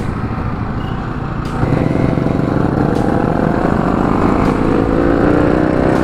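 Sport motorcycle engine running at speed on the road, with road and wind rush. It gets louder about a second and a half in as the bike accelerates, then holds a clear engine note.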